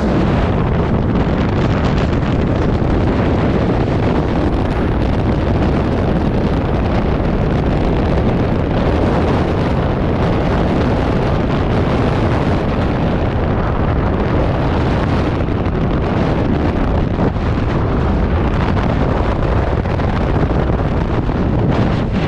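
Freefall wind buffeting a skydiver's camera microphone: a loud, steady, deep rush of wind noise with no letup.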